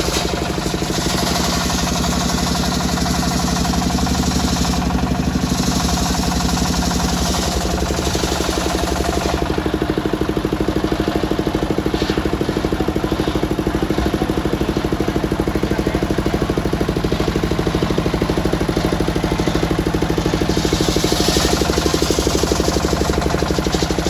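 Engine of a circular sawmill running steadily under power, with a spinning circular saw blade hissing as it cuts wood near the start, again around five seconds in, and from about twenty seconds in.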